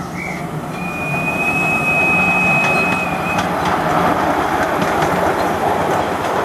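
Miniature 7.25 inch-gauge Bagnall 0-4-0 saddle-tank steam locomotive running along the track with two hopper wagons. The wheels rumble and clatter on the rails, growing louder over the first two seconds as it comes close. A thin, high, steady tone sounds from about one second in to about three and a half seconds in.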